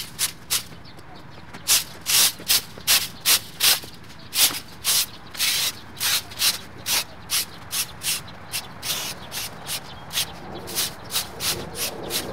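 Yard debris being swept or scraped up in quick, loud strokes, about three a second, with short pauses between runs.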